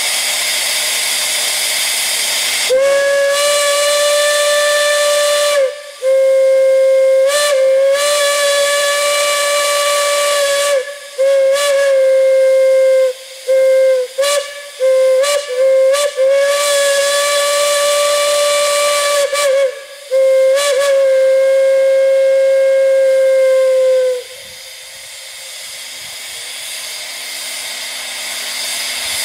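A steam whistle blowing one steady, clear note over a hiss of steam. It is sounded in a long series of blasts broken by short gaps, and the pitch wavers briefly at a few of the restarts. Steam hisses alone for about three seconds before the whistle opens, and the whistle cuts off about 24 seconds in, leaving a fainter hiss.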